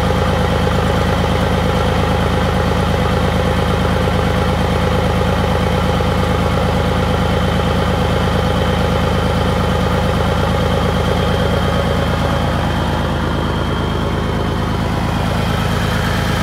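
Scania 112H truck's 11-litre straight-six diesel idling steadily at an even beat.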